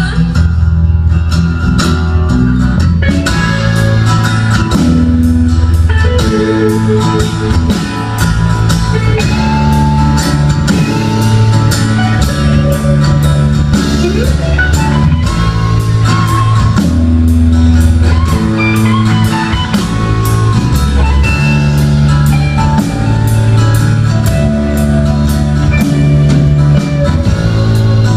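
Live rock band playing an instrumental break: a guitar lead with bent notes over bass and a drum kit.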